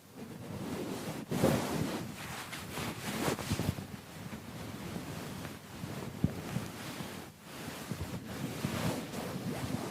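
Irregular swishing and scrubbing noise of a keyboard being cleaned, swelling and easing in uneven strokes.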